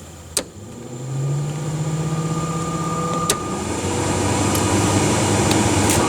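Heater blower fan of a 1962 Chrysler 300H switched on with a click and spinning up to a steady hum. A second switch click about three seconds in drops it to a lower, slightly louder hum, with what is called a little fan issue.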